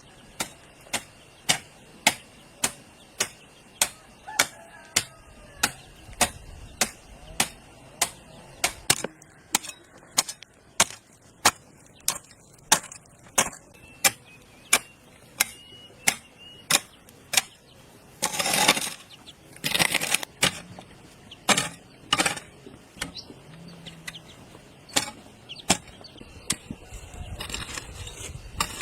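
Repeated sharp blows at a steady pace of about two a second, like a hand tool striking. About two-thirds of the way through they give way to two longer rasping bursts, then the blows resume less regularly.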